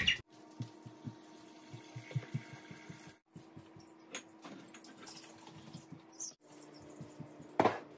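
Water being run for ice water over a steady low hum, with light knocks and a short clatter near the end.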